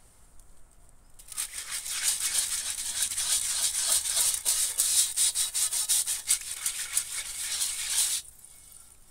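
Bamboo wok brush scrubbing the inside of a wok in hot water: fast, scratchy back-and-forth strokes, starting about a second in and stopping near the end.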